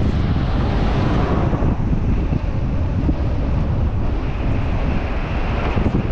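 Wind buffeting the microphone in a steady low rumble, over the road noise of a moving vehicle. A hiss swells about a second in and again near the end.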